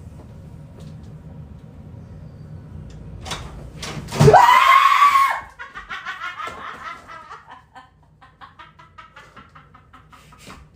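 A loud startled scream about four seconds in, rising in pitch, followed by several seconds of laughter that fades out: a scare prank with a fake snake landing.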